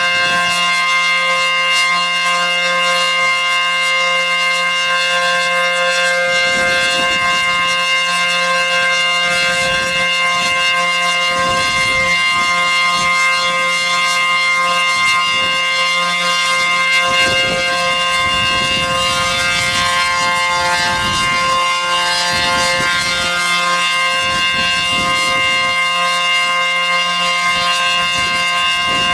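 ACA P-15 outdoor warning siren sounding a steady alert tone, held at one pitch at full speed.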